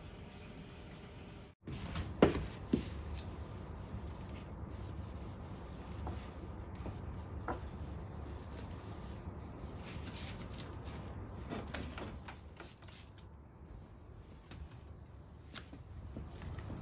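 Household handling sounds: two sharp knocks about two seconds in, then scattered light clicks and soft rubbing over a steady low background noise.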